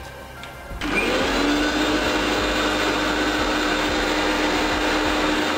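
Electric mixer grinder with a stainless steel jar switched on about a second in, running steadily as it blends wet jamun pulp with lemon juice, then cut off suddenly.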